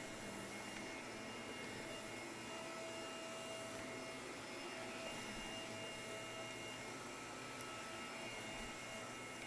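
Shark vacuum cleaner running steadily on carpet, a constant whir with a few held tones over the noise.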